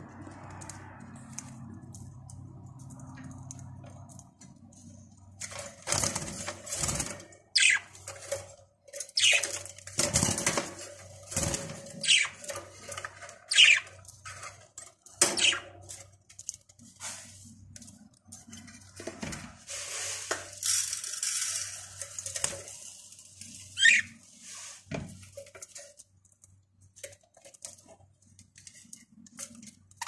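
Pet budgerigars feeding at a plastic seed dish in a wire cage: from about five seconds in, a busy run of sharp clicks and knocks from beaks on seed and plastic, with several short, high chirps.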